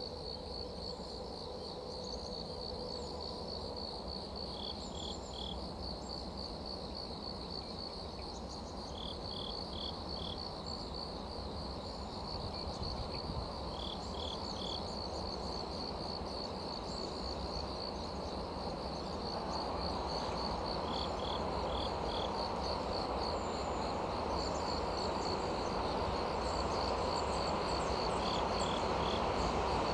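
Crickets chirping in a steady run of rapid pulses, about three to four a second, with another insect giving short groups of three notes every few seconds. From about two-thirds of the way in, a low rumble from a train approaching through the tunnel grows slowly louder.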